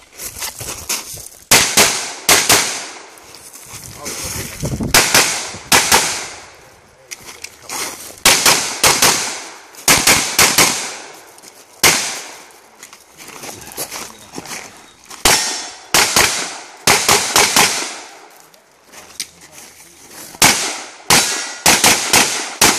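Glock 34 9mm pistol firing a timed USPSA stage: sharp shots in quick clusters of two or more, with gaps of a second or more between clusters as the shooter moves between targets.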